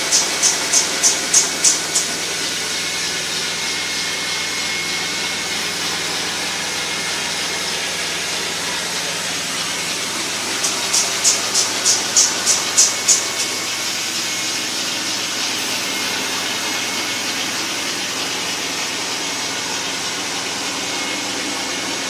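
Rotovac rotary carpet extractor running: a steady rush of vacuum airflow, with rhythmic hissing pulses about three a second at the start and again about halfway through.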